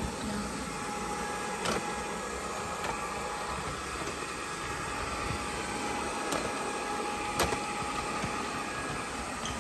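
GleeU GRS1 robot vacuum running: a steady motor hum with a faint high tone, broken by a few sharp clicks, the loudest about seven seconds in.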